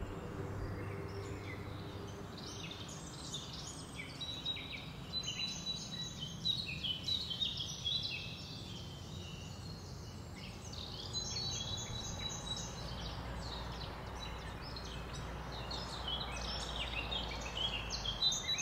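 Small birds chirping and twittering in many short high calls over a steady low background rumble.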